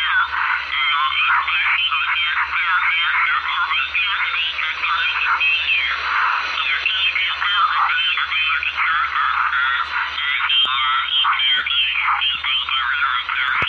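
Shortwave radio receiver audio: garbled, unintelligible voice-like chatter squeezed into a narrow high band, over a steady low hum.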